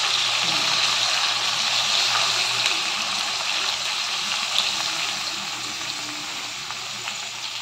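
Chicken pieces sizzling in a hot wok as soy sauce is poured over them: a steady hiss that slowly dies down.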